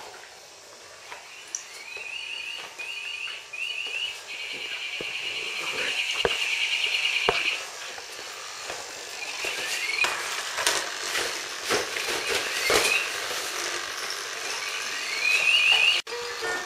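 Czechoslovakian wolfdog puppies playing on a tile floor: short rising whines and yips and a few sharp clicks of claws and toys on the tiles. Over them comes a high chirping trill in short repeated bursts, with one longer run a few seconds in and another near the end.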